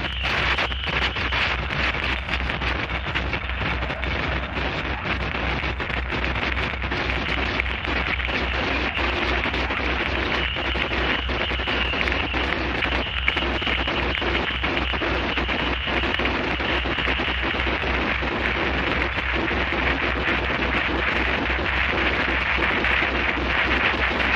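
Harsh noise music: a dense, unbroken wall of distorted noise, with a low hum beneath that pulses rapidly and evenly.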